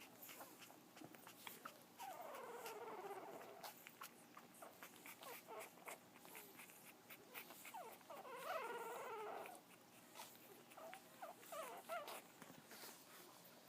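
Frenchton puppy whimpering in its sleep: a falling whine about two seconds in, a longer wavering whine around eight seconds, then a few short squeaks near the end.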